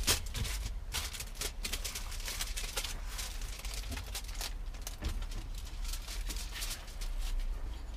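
Aluminium foil crinkling and rustling in rapid crackles as a brisket is wrapped in it by hand, over a steady low rumble.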